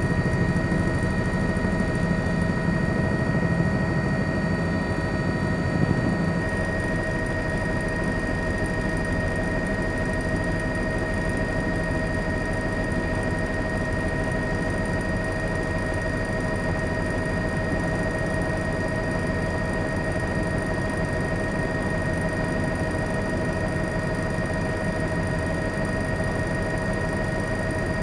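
Steady engine drone with several constant whining tones over it and a fast low flutter, slightly louder for the first six seconds.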